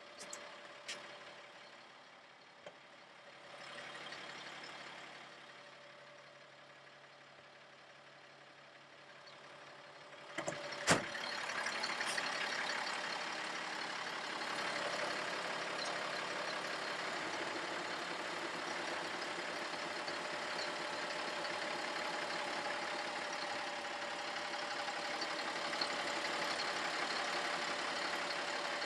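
Caterpillar 3126 turbo-diesel of a Stewart & Stevenson M1078A1 LMTV truck idling steadily. It is quieter at first and becomes louder and fuller after a sharp double knock about eleven seconds in.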